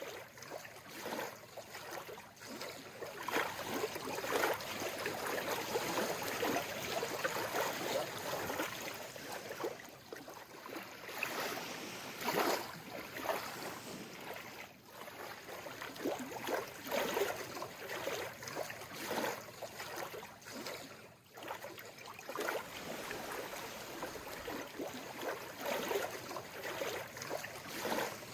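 Calm seawater lapping gently, in small irregular splashes over a steady wash.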